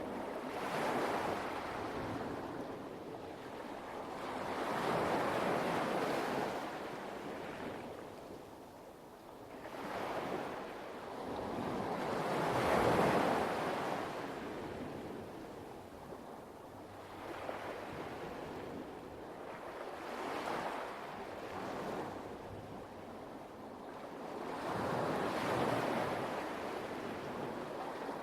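Light waves washing onto a pebble beach, each wash swelling and then fading every few seconds.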